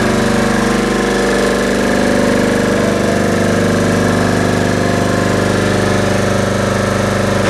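Hatlapa V150 marine air compressor, a reciprocating compressor driven by an electric motor, running steadily with a fast, even pulsing beat.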